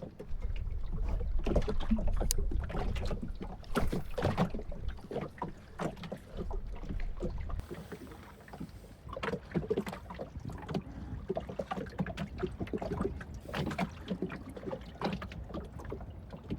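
Small fishing boat on a lake with a fish on the line. Wind rumbles on the microphone for the first few seconds and again briefly later, under scattered knocks, taps and splashes as the hooked fish is brought in.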